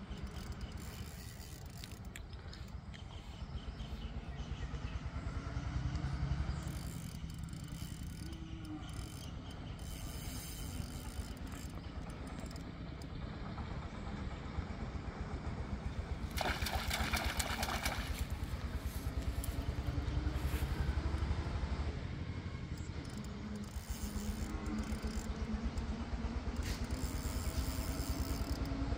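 A steady low engine hum made of fast, even pulses, with a burst of fast ticking lasting about a second and a half midway.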